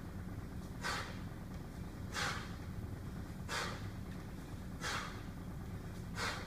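A man's short, forceful breaths, five in an even rhythm about one and a half seconds apart, keeping pace with repeated kettlebell cleans, over a low steady hum.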